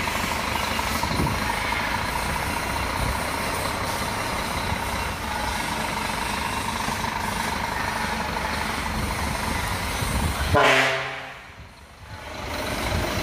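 Scania truck's diesel engine running steadily at idle, then about ten and a half seconds in a single loud, short blast of the truck's horn.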